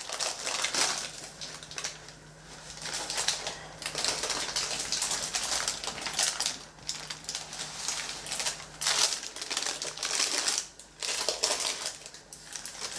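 Baking parchment paper crinkling and rustling in irregular crackly spells as it is lifted and folded around a rolled sponge cake, with the cloth towel rubbing along with it.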